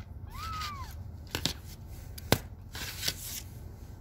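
Small metal nail clipper cutting a kitten's claws: a few light clicks, then one sharp snap about two and a half seconds in, with handling rustle just after. A brief high squeak rises and falls near the start.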